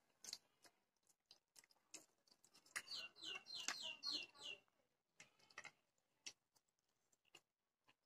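Faint eating sounds: forks clicking against a plate and quiet chewing. About three seconds in, a quick run of about seven short, high, falling chirps lasts close to two seconds.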